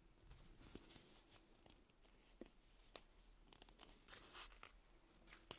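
Faint rustling and light clicking as fingers bend and handle a small hard-rubber toy shaped like a stick of gum, busiest about three and a half seconds in, with a sharper click near the end.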